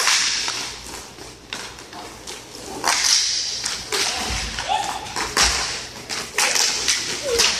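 Roller hockey play: sharp clacks and slaps of sticks hitting the puck and the rink boards, about five of them spread through, in a large echoing rink.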